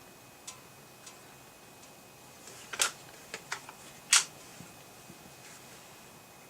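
Beeman break-barrel pellet rifle being handled and fired, heard as a few light clicks and two loud sharp cracks about a second and a half apart.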